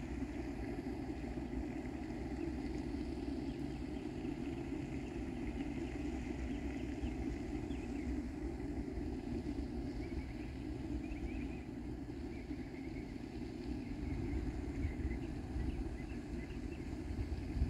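Steady low outdoor rumble, with faint short high chirps from about ten seconds in.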